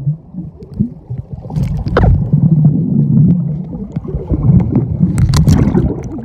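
Muffled underwater noise picked up by a phone submerged in a swimming pool: a low rumble of moving water that grows louder about two seconds in, with a few sharp clicks or knocks.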